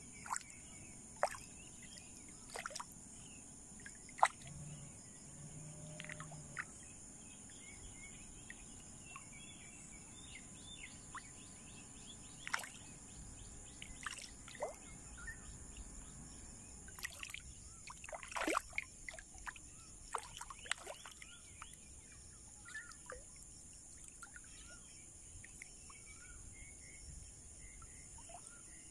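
Faint outdoor ambience: a steady high insect buzz, with scattered short bird chirps and occasional small sharp splashes from fish breaking the water's surface.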